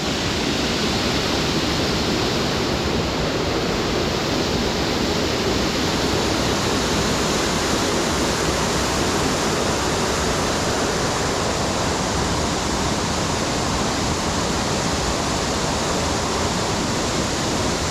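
Waterfall: a steady, loud rush of water falling, with no change in level.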